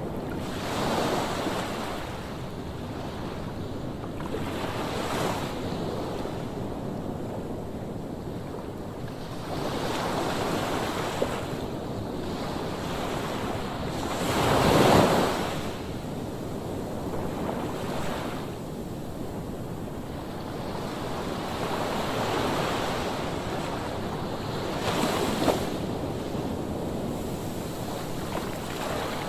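Waves surging and washing in every few seconds, the largest about halfway through, with wind.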